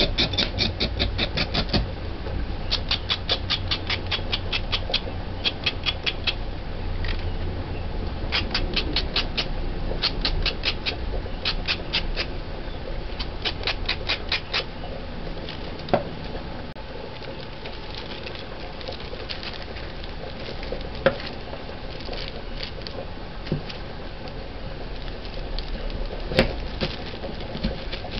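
A knife chopping carrots finely on a hard tiled surface: quick runs of taps at about seven a second in short bursts, thinning to occasional single knocks in the second half.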